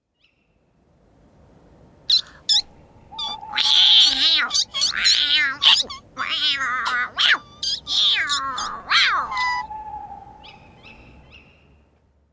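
Cats meowing and yowling: a few short calls, then long wavering cries that overlap, some sliding down in pitch, before fainter calls trail off.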